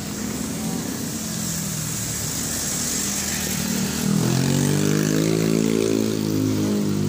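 Street traffic, with a motor vehicle's engine passing close by: its engine note builds from about three seconds in, is loudest for a couple of seconds, then fades near the end.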